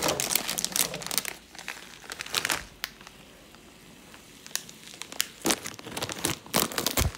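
Crinkling of the plastic wrapper of a Samyang instant ramen packet as it is opened and handled, in irregular bursts of crackles.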